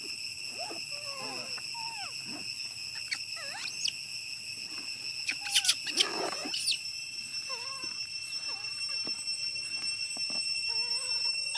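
Baby macaque crying in repeated short, whiny calls that bend up and down in pitch, a hungry infant's cries for milk, over a steady high insect drone. About six seconds in comes a louder, harsher burst with a few sharp clicks.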